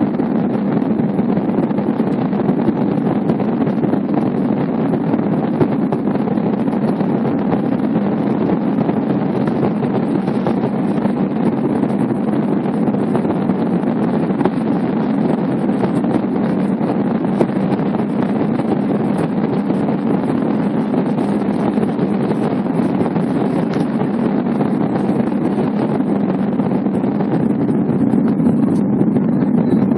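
Airliner cabin noise during the climb after takeoff: the engines and airflow make a steady, even drone heard from inside the cabin.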